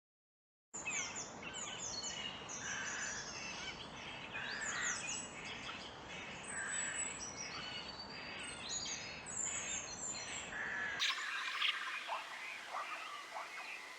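Many birds chirping and calling over steady outdoor background noise, after a brief silent gap at the start. About three-quarters of the way through, the sound switches abruptly to a different chorus of chirps.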